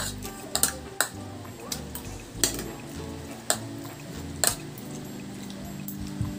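Metal spoon and fork clinking and scraping against a ceramic dinner plate while scooping rice, about half a dozen sharp clinks at irregular intervals.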